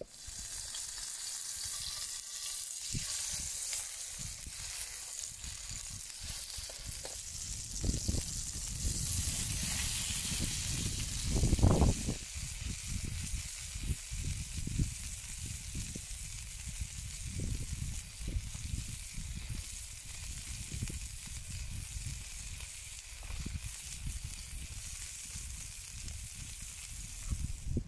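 Steaks sizzling in a titanium Trangia frying pan over a methylated-spirits burner: a steady high hiss. Underneath are irregular low bumps and rumbles, the loudest about twelve seconds in.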